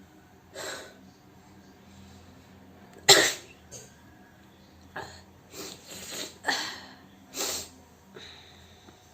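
A person's forced sneezes and coughs: about half a dozen short, sudden, explosive bursts, the loudest about three seconds in and several more in quick succession after five seconds, from trying to sneeze on purpose with the nose being tickled.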